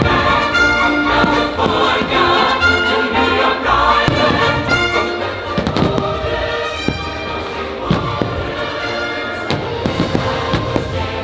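Fireworks bursting over a loud patriotic show soundtrack, with several sharp bangs in the second half while the music plays on.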